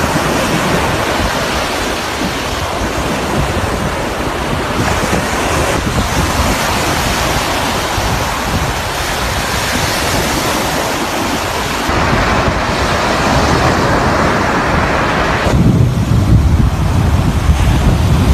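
Rough surf breaking on a sandy beach, with strong wind buffeting the microphone. The wind rumble grows heavier near the end.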